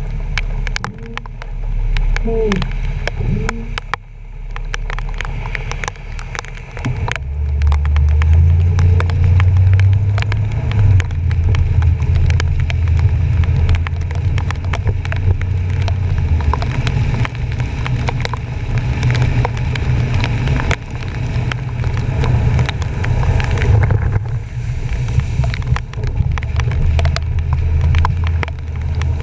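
Truck driving through a flooded street, heard from a GoPro on its front bumper: water rushing and splashing against the bumper under a heavy low rumble, with many sharp ticks of water striking the camera housing. The rumble swells about a quarter of the way in and stays loud most of the way.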